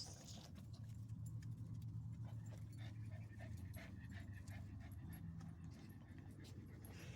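A dog panting in short, quick breaths over a steady low hum.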